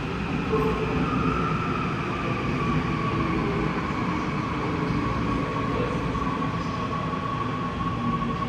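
Seoul Subway Line 9 train pulling into the station: a steady rumble of wheels on rail, with a high whine that slowly falls in pitch as the train slows.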